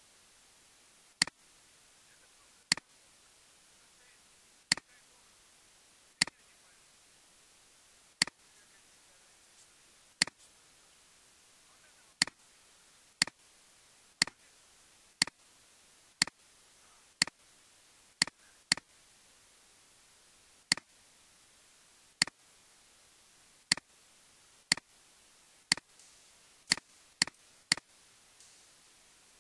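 Computer mouse buttons clicking: single sharp clicks at an irregular pace, every half second to two seconds, over a faint steady hiss.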